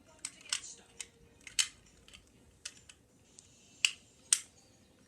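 Plastic Lego bricks clicking and clacking as they are handled and fitted together: about seven sharp, separate clicks, the two loudest near the end.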